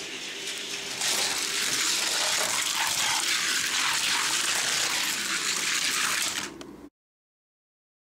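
Two 1:64-scale die-cast stock cars rolling down a gravity race track, a steady rolling rattle of small wheels on the track lanes. It grows louder about a second in, then thins out and cuts off abruptly near the end.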